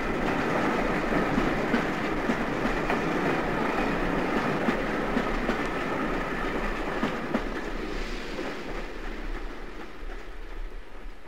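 Bournemouth–Waterloo train hauled by Southern Railway 'Lord Nelson' class 4-6-0 steam locomotive No. 30857 Lord Howe, its wheels clattering over the rail joints as it draws away. The sound fades steadily in the last few seconds.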